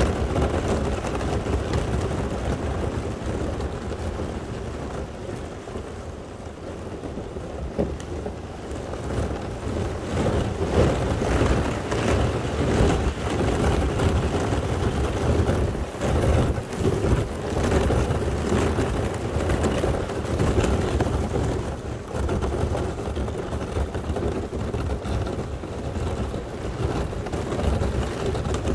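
Kayak hull breaking through a quarter-inch sheet of solid ice: the ice cracks, crunches and scrapes along the hull without pause, with sharper cracks now and then.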